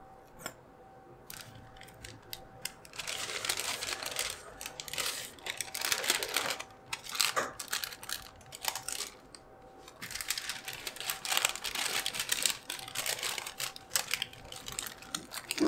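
Paper wrapper crinkling and rustling as a cream-topped waffle is folded into it by hand, in irregular bursts with short pauses, starting about three seconds in.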